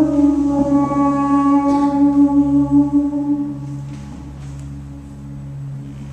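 Dance accompaniment music ending on a long held note that fades out about halfway through, leaving a steady low hum.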